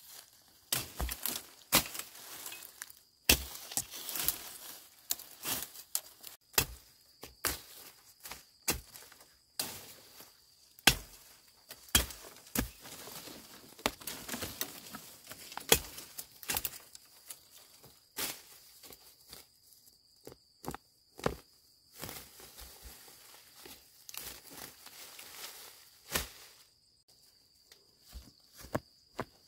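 Machete chopping through brush and dry cassava stems: irregular sharp chops among rustling leaves and snapping twigs, with a steady high insect whine behind. Near the end the chopping stops, leaving softer rustling as hands pull at the ground.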